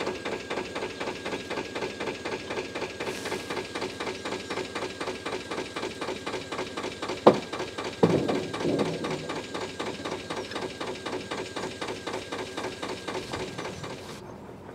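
Air-cooled Lister diesel engine of a narrowboat idling with a steady, even chugging beat of roughly four to five beats a second. About seven seconds in there is a single sharp metallic clank, the loudest sound, followed by a brief clatter.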